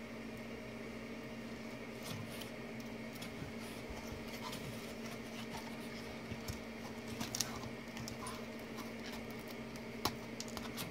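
Faint clicks, taps and rubbing of hands turning a hard PLA 3D-printed statue, with a sharper click about seven seconds in and another near the end. Under it runs a steady electrical hum.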